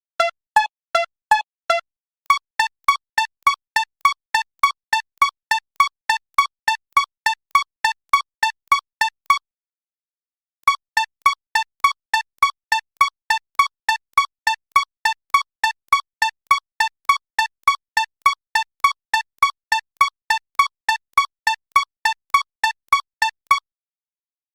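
Japanese electronic railroad-crossing warning bell dinging in a rapid, even rhythm, about three strikes a second on two alternating tones. The first few dings are lower in pitch; the ringing breaks off briefly about two seconds in and again around nine seconds in, then resumes and stops shortly before the end.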